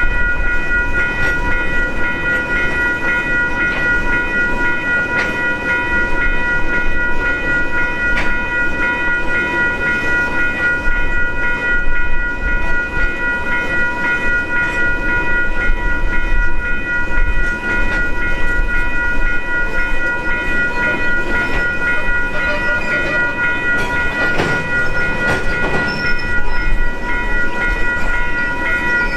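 Freight train's wagons rolling past, wheels rumbling and clacking over rail joints now and then, with a steady high-pitched ringing of several tones over it.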